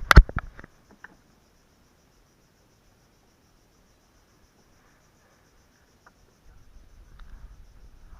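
Crickets chirping in a faint, steady, high pulsing trill. A few sharp knocks in the first second are the loudest sound.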